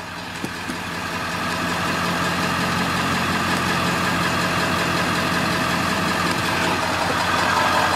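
Ford 7.3-litre Power Stroke V8 turbo diesel idling in Park, heard from inside the cab. It grows louder over the first couple of seconds, then runs steady.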